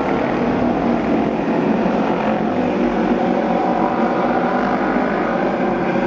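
Several auto race motorcycles running flat out around the oval together, their engine notes blending into one steady, loud, layered drone.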